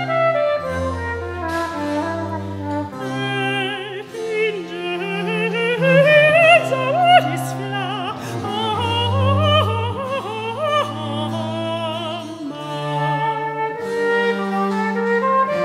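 Early-music chamber performance of a sacred motet. A soprano with strong vibrato sings a long, rising phrase from about three seconds in until near the end, over sustained bowed cello bass notes. A cornett plays at the start and comes back in near the end.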